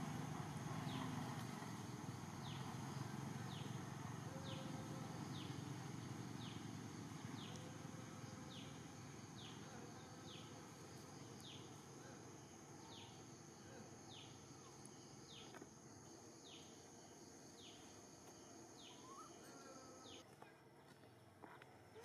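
Faint forest ambience: a steady high insect drone that cuts off suddenly near the end, and a short, falling high call repeated about once a second. Underneath is a low rumble that fades away over the first half.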